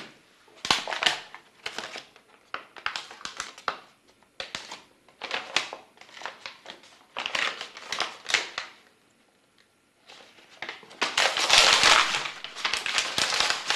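Plastic packaging around a high-volume infusion set crinkling and rustling in irregular bursts with small clicks. The longest and loudest stretch comes over the last few seconds.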